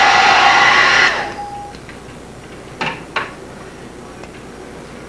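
Hand-held hair dryer blowing steadily as it dries a freshly alcohol-rinsed brass clock plate, switched off about a second in and winding down. Two light clicks follow, about half a second apart.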